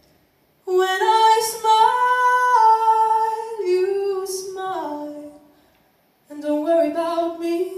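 A woman singing two slow phrases with long held notes. The first steps down in pitch at its close, and the second begins about six seconds in.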